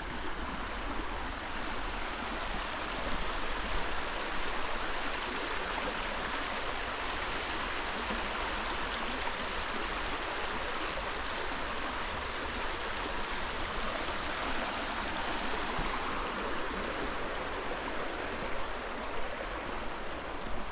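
A creek flowing, a steady rushing of water.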